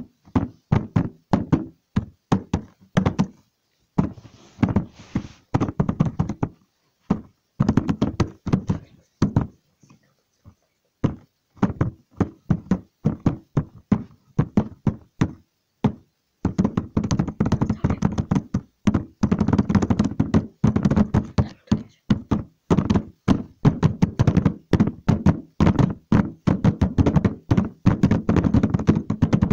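Rapid, irregular knocking and tapping, several sharp hits a second, pausing briefly a few times and densest in the second half.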